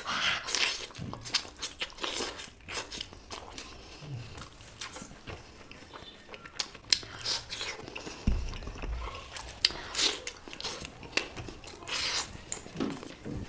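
Close-miked chewing and mouth smacks from a person eating curry and rice, in a quick irregular run of short wet clicks.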